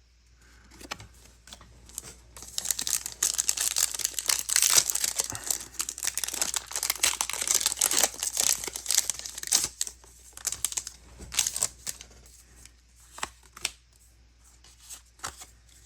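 Foil wrapper of a Pokémon TCG booster pack crinkling and tearing as it is opened by hand: a dense run of crackling for several seconds, then fewer, lighter rustles and clicks.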